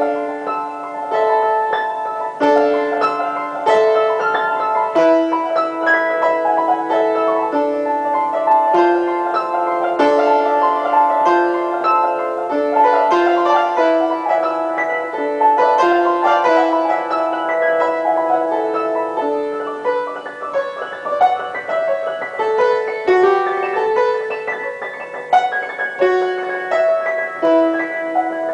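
Solo piano playing a lively melody of quick, overlapping notes in the middle and upper register, starting suddenly at the outset.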